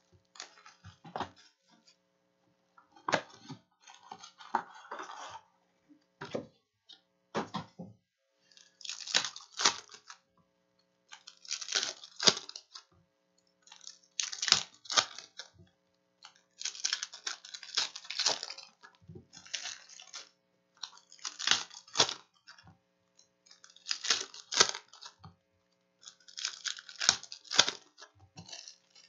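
Foil wrappers of 2019-20 Panini Prizm retail basketball card packs crinkling and tearing as the packs are ripped open and the cards pulled out. There are scattered crinkles at first, then dense crackling bursts about every two to three seconds.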